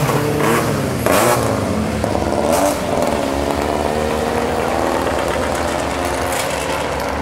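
Hill-climb race car engines revving hard through a hairpin, the note dropping and jumping up again about a second and two and a half seconds in, then further cars' engines running steadily and slowly rising in pitch as they climb toward the bend.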